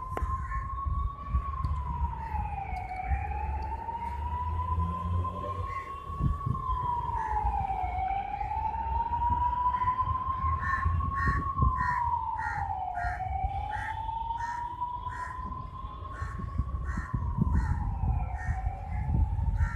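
A siren wailing, its pitch climbing slowly and then dropping quickly, repeating about every five seconds. Through the second half a short chirp repeats about twice a second, over a low rumble.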